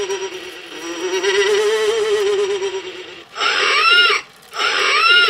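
Push-button animated Halloween scarecrow's built-in sound playing through its small speaker. It starts with a wavering, warbling electronic tone in two long stretches, broken by a short gap about half a second in. Near the end come two short, loud spooky vocal calls that rise and fall in pitch.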